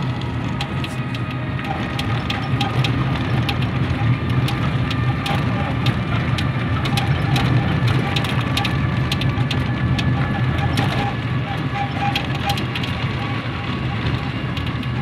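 A small motor vehicle's engine running at a steady speed while on the move, a low steady hum under a dense scatter of crackling clicks and rattles.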